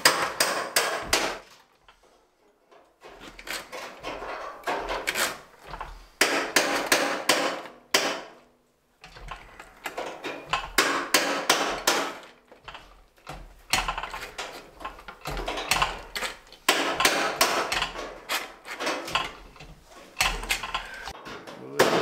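Hand-operated sheet-metal shrinker clacking again and again as its lever is pumped, its jaws gripping and shrinking the edge of a steel fender patch panel to curve it. The clacks come in quick runs, with short pauses about two seconds in and again about eight seconds in.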